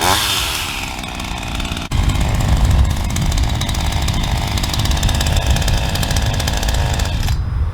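Black Max 38cc two-stroke chainsaw engine dropping from cutting speed as the throttle is let off, then running at a steady idle.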